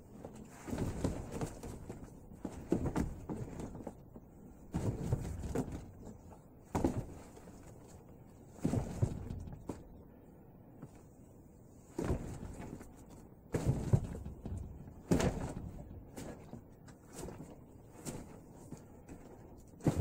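Hands and forearms striking and brushing against a homemade, duct-tape-wrapped Wing Chun dummy: irregular dull thuds and knocks in short clusters every second or two, with a few sharper knocks standing out.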